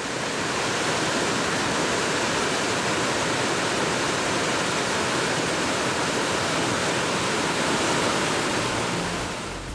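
Waterfall rushing over rocks: a steady, even rush of water that swells up over the first second.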